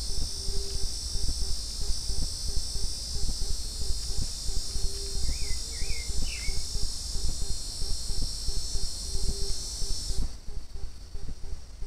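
Dense, high insect buzzing from a forest chorus of cicadas or crickets, which cuts off suddenly about ten seconds in. A bird gives three short chirps midway, over a steady low rumble and crackle.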